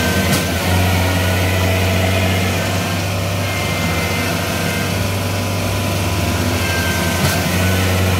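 Engine of a mini rice combine harvester running steadily with an even low drone while the machine is bogged in deep, flooded mud and struggling to pull itself out.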